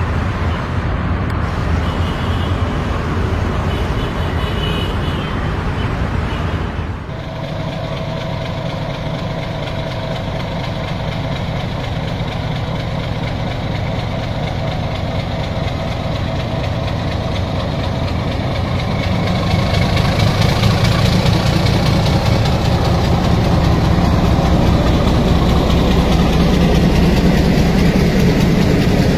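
Diesel-hauled passenger train running, then after a change about seven seconds in, the low, steady drone of a diesel locomotive's engine at a platform, growing louder about two-thirds of the way through as the train moves alongside.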